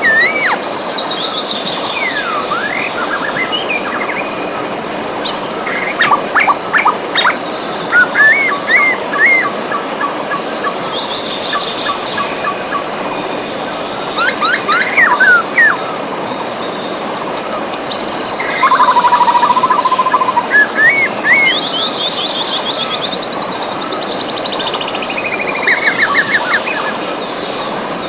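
A river rushing steadily, with several birds singing over it: short chirps, quick trills and warbling phrases, one held low warble about two-thirds of the way through.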